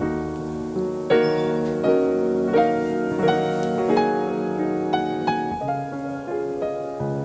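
Background piano music: gentle notes and chords played at an even pace, roughly a note every two-thirds of a second.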